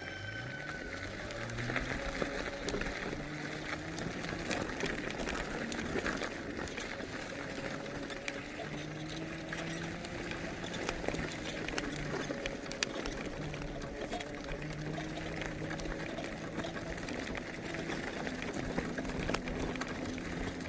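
A vehicle's engine running under way. It speeds up over the first couple of seconds, then holds fairly steady with small rises and falls in pitch, with light knocks and rattles throughout.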